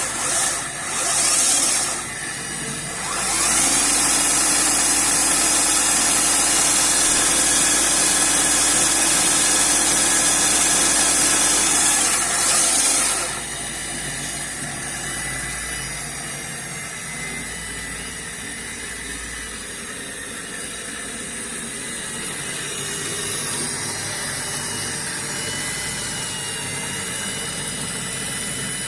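Homemade lathe-milling machine running, with a loud hissing cutting noise for about the first half, broken by two short dips near the start; it then drops to a quieter steady motor hum with a faint whine.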